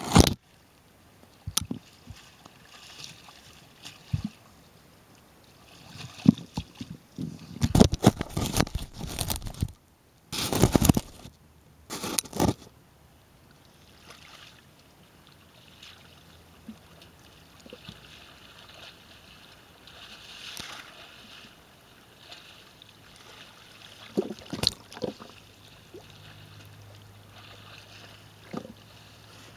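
Muddy puddle water sloshing and splashing as a body in a nylon snowsuit moves through it, with a cluster of loud splashes close to the microphone a few seconds in and another pair later on.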